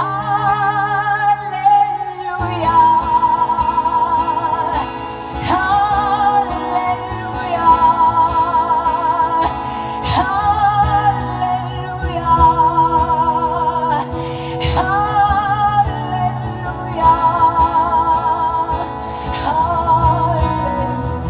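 A woman sings long held notes with vibrato over guitar accompaniment, sliding up into each new phrase every few seconds.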